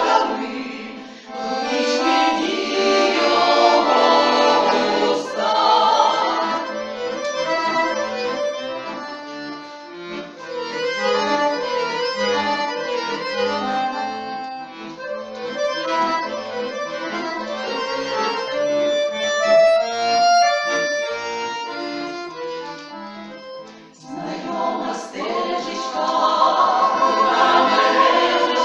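Women's folk choir singing with accordion accompaniment. About six seconds in the voices stop and the accordion plays a solo instrumental interlude, and the choir comes back in near the end.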